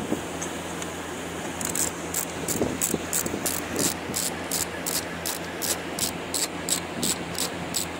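Hand socket ratchet clicking as it is worked back and forth on a bolt, starting about a second and a half in and going on at an even pace of about four clicks a second.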